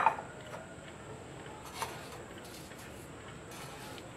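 Quiet room noise with a short sharp click at the start and a fainter tick about two seconds in, over a faint steady high-pitched whine.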